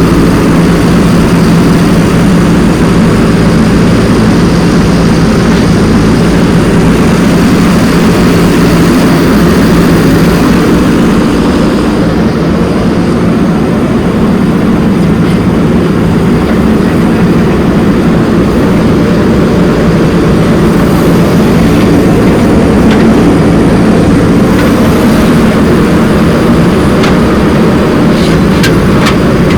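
Heavy diesel earthmoving machinery running steadily at constant speed, loud and close, with a few sharp clicks near the end.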